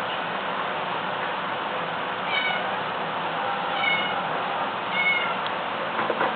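Domestic cats meowing three times, short high-pitched meows about a second and a half apart, with a fainter call near the end, over a steady hiss. The cats are begging for the tuna being opened for them.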